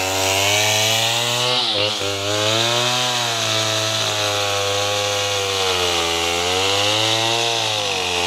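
Two-stroke chainsaw engine running steadily. Its pitch wavers up and down and dips briefly about two seconds in.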